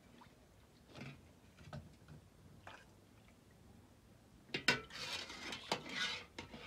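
Kitchenware being handled: a few separate knocks and clinks, then a busier stretch of clatter and scraping about two-thirds of the way through.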